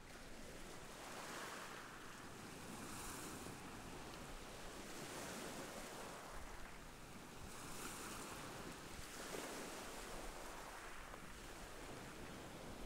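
Sea surf: small waves breaking and washing up on a sandy beach, swelling and fading every two to three seconds.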